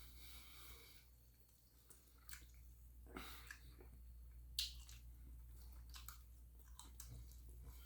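Faint chewing of fried chicken: soft wet mouth sounds and scattered lip smacks, with one sharper click about four and a half seconds in.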